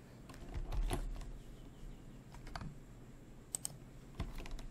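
Typing on a computer keyboard: scattered, irregular keystrokes, faint.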